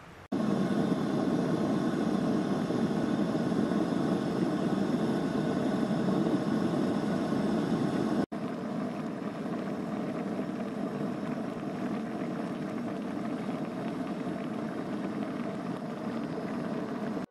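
Coleman camp stove's gas burner running under a pot of boiling water and ramyun, a steady even noise. It breaks off for an instant about eight seconds in and then carries on slightly quieter.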